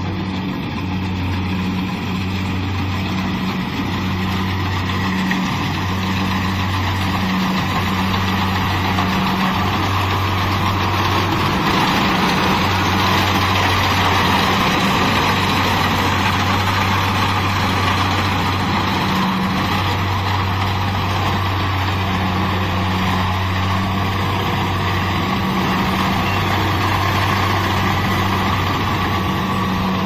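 Kubota DC-70 rice combine harvester running under load as it cuts and threshes rice: a steady diesel engine and machinery drone that grows louder toward the middle as the machine comes close, then eases slightly.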